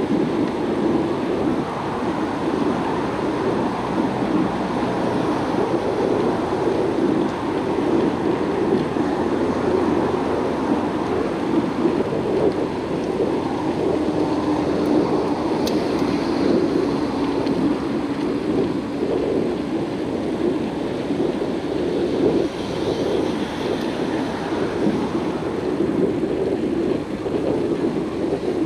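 Steady rushing noise of wind on the microphone and tyres rolling on pavement from a moving bicycle, with road traffic alongside.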